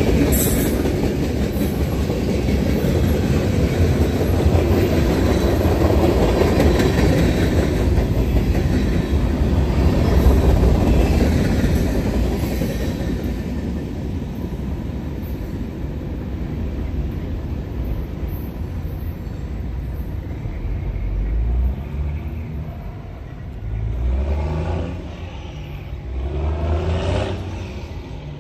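Freight cars rolling past on the rails, a loud even rumble that fades about halfway through as the end of the train clears. Near the end, a semi tanker truck's diesel engine revs up three times as it pulls across the tracks.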